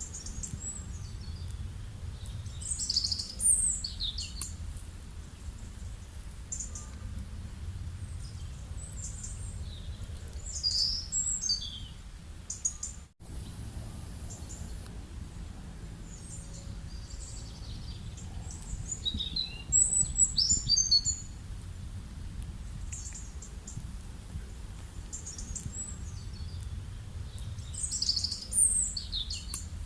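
Birds chirping in four short clusters of quick high calls, several seconds apart, over a steady low rural background rumble. The sound cuts out for a moment about halfway through.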